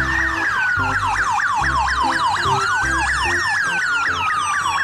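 Police siren: a fast yelping siren sweeping down about five times a second, layered with a slower wail that rises and falls, over background music with a steady bass beat.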